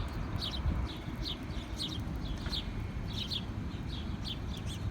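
Small birds chirping: many short, quick falling chirps, a few a second and irregular, over a low steady rumble.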